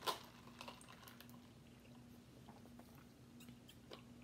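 Near silence as two people sip iced drinks through plastic straws: one sharper click right at the start, then scattered faint mouth and straw clicks over a faint steady hum.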